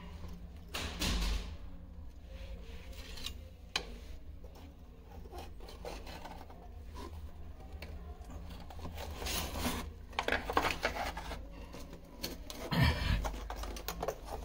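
Irregular scraping and rubbing from hand work, with scattered sharp clicks and knocks; louder scraping about a second in, around ten seconds and near the end.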